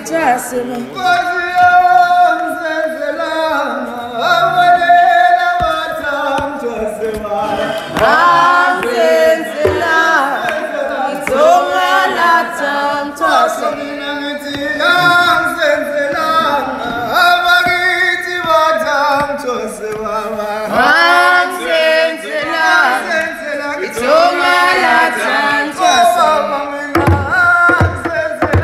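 Voices singing a song, with drum beats coming in near the end.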